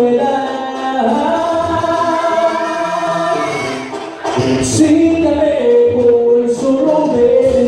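A singer performing a song over backing music, with long held notes and a short break a little past the middle.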